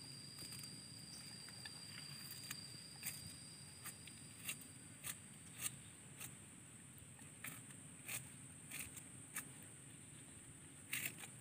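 Faint outdoor background: scattered light clicks and rustles at irregular intervals over a steady high hiss, with a thin high tone that fades out about five seconds in.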